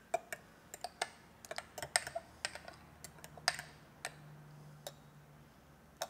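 A metal spoon clinking against a small glass bowl while stirring a flour-and-broth slurry: light, irregular clicks, two or three a second at first and sparser in the second half.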